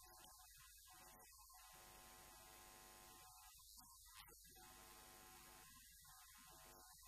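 Near silence: a faint steady electrical hum with a low hiss.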